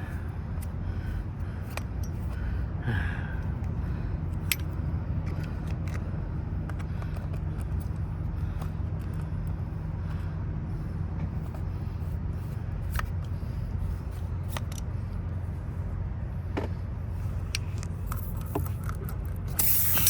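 Small clicks and scrapes from a tire plug repair kit being handled, over a steady low hum. Near the end a loud hiss starts.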